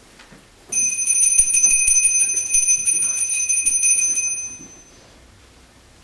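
Small altar bell shaken rapidly for about three and a half seconds, then dying away: the bell rung at the elevation of the host after the consecration in a Latin Tridentine Mass.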